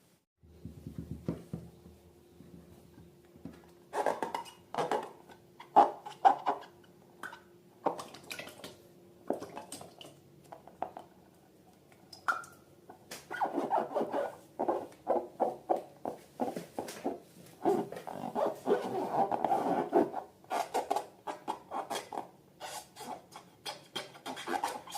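Slime being squished and worked by hand: irregular wet, sticky squelches and clicks, growing busier about halfway through.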